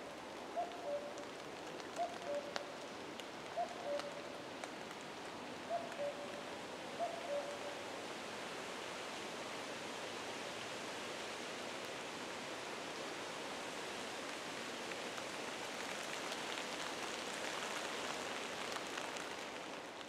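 A common cuckoo calling its two-note 'cuck-oo', a higher note falling to a lower one, about five times in the first eight seconds and then stopping. Under it a steady rushing hiss of leaves or light rain runs throughout and grows slightly louder near the end.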